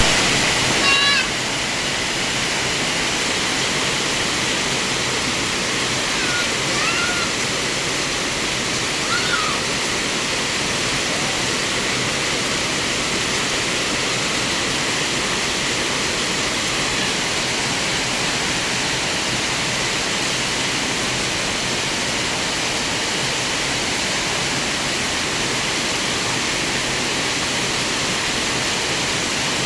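Heavy rain pouring down steadily. A few brief, high, wavering cries come through it in the first ten seconds.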